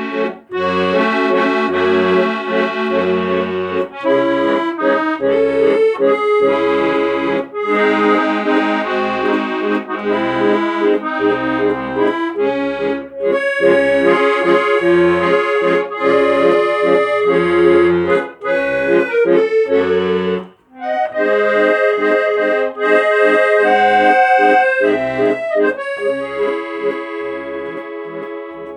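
Accordion music: a melody over a bouncing, alternating bass, with a short break about two-thirds of the way through, fading out near the end.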